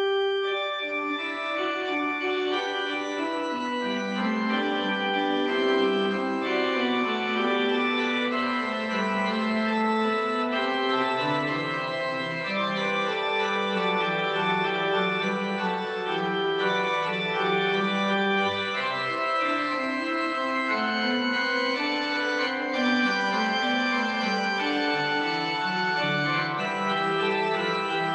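Pipe organ playing a slow piece of held chords over a bass line that moves step by step, at a steady level throughout.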